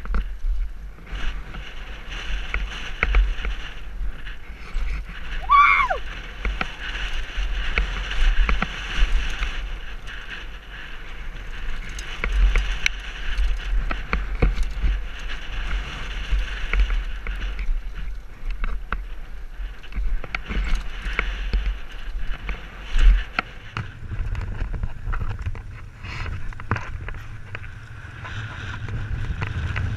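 Mountain bike descending a rough dirt trail at speed, heard from a helmet camera: wind buffeting the microphone, with the bike rattling and clicking over the stones and ruts. About six seconds in there is a brief high call that rises and falls.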